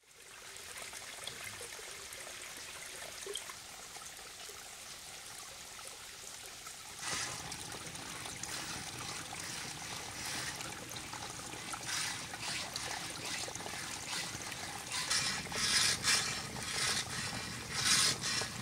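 A small forest stream trickling steadily. From about seven seconds in, the back-and-forth rasp of a wooden frame saw cutting through a branch joins it, with the strokes growing louder and more distinct near the end.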